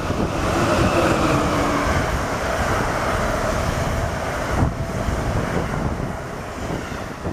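Amtrak train, an electric locomotive hauling ribbed stainless-steel coaches, passing the platform at speed: a steady rumble of wheels on rail and rushing air, loudest about a second in and easing off near the end. Wind buffets the microphone throughout.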